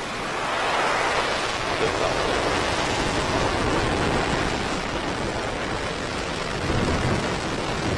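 Falcon 9 first stage's nine Merlin 1D engines at full thrust during liftoff: a dense, steady crackling noise that swells about a second in and then holds.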